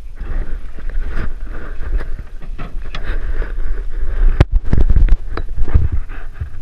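Rumbling handling noise and irregular knocks on a GoPro's microphone as a hooked brook trout is fought on spinning gear, with one sharp click about four and a half seconds in.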